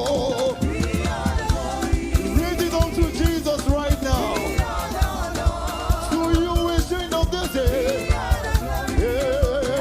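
Gospel praise music: singing voices over a band with a steady drum beat.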